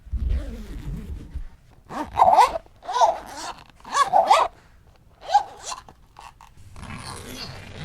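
Zipper being pulled in quick strokes, about one a second. Each pull gives a short buzzing rasp whose pitch bends with the speed of the slider. Near the end comes a longer, softer, even rasping.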